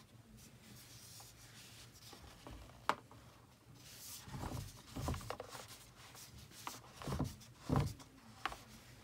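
Fingers handling and turning a Google Home smart speaker: scattered rubbing and tapping on its plastic shell, a sharp click about three seconds in, and a few soft knocks near the end.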